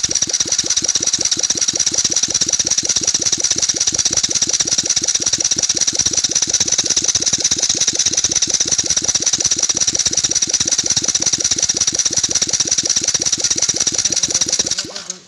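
TVS Scooty Pep engine turning over with its magneto rotor removed, the bare crankshaft spinning in its oil seal: a steady, fast mechanical beat with a high hiss that cuts off near the end. The run is a test for oil leaking past the magneto-side crankshaft oil seal.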